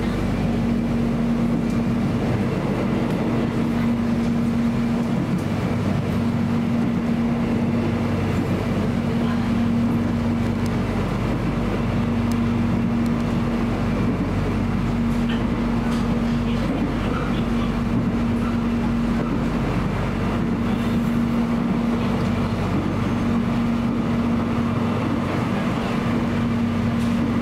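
Cabin running noise of a Soekarno-Hatta Airport Rail Link electric train at speed: a steady rumble of wheels on rail with a constant low hum.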